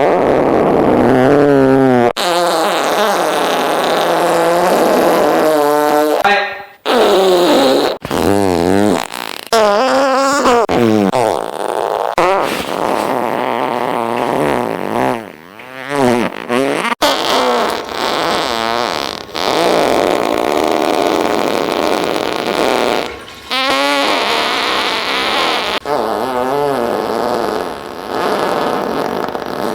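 A run of about ten fart sound effects played back to back, each cut off abruptly as the next starts. Many are long, wavering farts whose pitch wobbles up and down.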